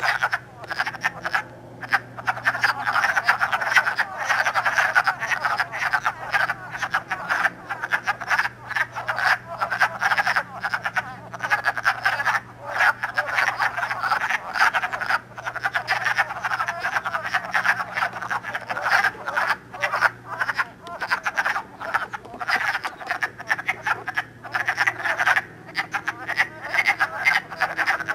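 Breeding chorus of many male wood frogs calling at a pond: dense, overlapping short calls with no break.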